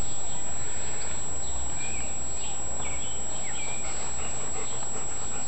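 Faint, short bird chirps over a steady outdoor background hiss and low rumble.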